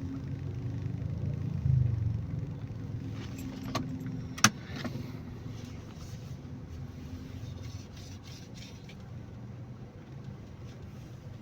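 Car engine running steadily, heard from inside the cabin, with a low thump about two seconds in and a sharp click a little later, then a few light clicks and rattles.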